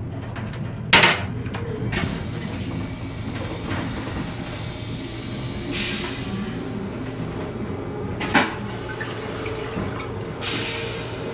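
Metro-North M7 railcar toilet flushing: a loud sharp clack about a second in and a couple of smaller knocks, with two hissing rinse bursts of water, one about six seconds in and one near the end. Under it all runs the steady low hum of the railcar.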